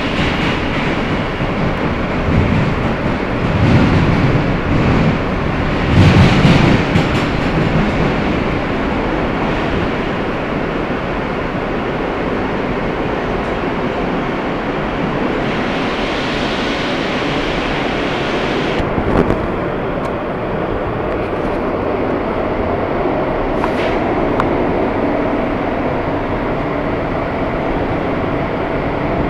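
R160 subway car running through a tunnel, heard from inside the car: a steady rumble of wheels on the rails, with a few louder jolts about three to seven seconds in.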